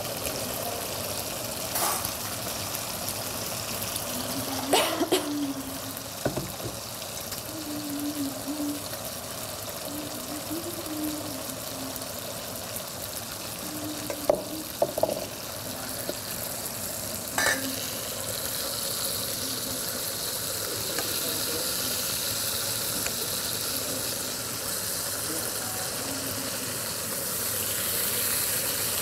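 Sliced meat frying in a pan, a steady sizzle that grows louder in the second half, with a few sharp clinks of a utensil against the pan.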